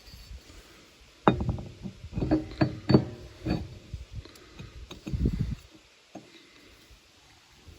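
Metal clinks and knocks as a pulley is fitted and seated onto a mower deck blade spindle: a quick run of ringing strikes between about one and three and a half seconds in, then a duller thump.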